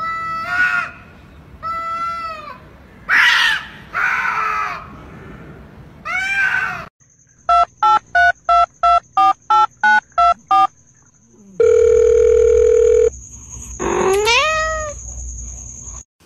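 Two cats yowling at each other, about five drawn-out calls. Then about ten evenly spaced telephone keypad beeps, a steady dial tone, and a rising call near the end.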